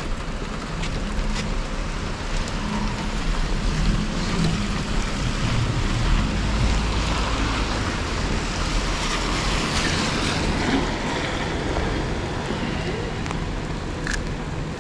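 Steady rain and traffic on a wet city street, with low rumble and wind on the microphone; the hiss swells once about nine seconds in, as of tyres passing on wet pavement.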